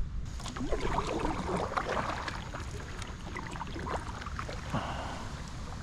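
Water splashing and dripping around a kayak, irregular, busiest in the first few seconds, over a low wind rumble on the microphone.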